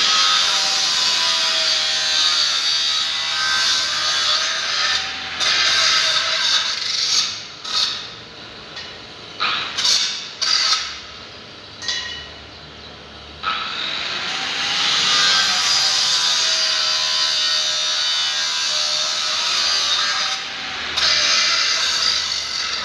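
Angle grinder cutting through square steel tubing. There are two long stretches of steady grinding, and between and after them come shorter on-off bursts as the disc bites and lifts.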